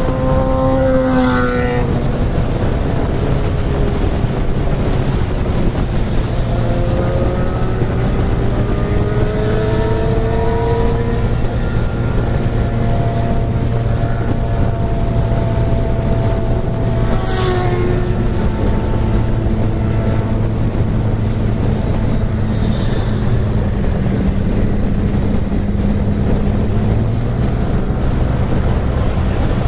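Yamaha N-Max 125 scooter's single-cylinder four-stroke engine running under way, its pitch gliding slowly up and down with the throttle over a steady low rumble, with wind noise on the microphone. Brief rushes of noise come about a second in and again past halfway.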